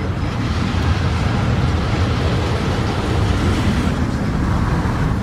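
Steady, loud rumble of moving vehicle noise, deep at the bottom with a hiss above it, swelling slightly toward the middle.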